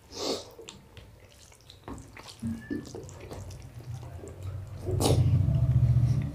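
Soft wet chewing and lip smacks from people eating rice with their hands. About five seconds in, a man gives a loud, low, closed-mouth hummed "mmm" of enjoyment.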